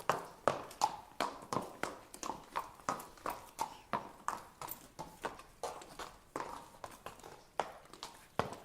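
Horse walking, its hooves striking the ground in a steady clip-clop, about three hoof falls a second.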